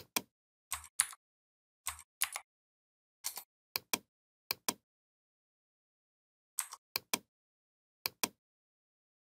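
Computer mouse buttons and keyboard keys clicking, about eight clusters of sharp clicks, many in quick press-and-release pairs, with dead silence between them.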